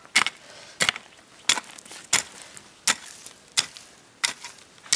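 A hoe chopping into garden soil to loosen it, in a steady rhythm of about eight strokes, one every two-thirds of a second.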